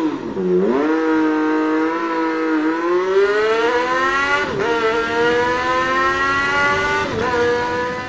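A vehicle engine accelerating hard through the gears: its pitch climbs steadily, drops sharply and climbs again three times, as at each gear change.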